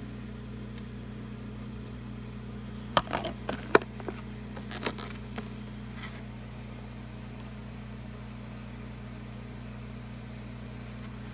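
A clear plastic deli cup being handled: a cluster of sharp clicks and taps about three to four seconds in and a few fainter ones just after, over a steady low hum.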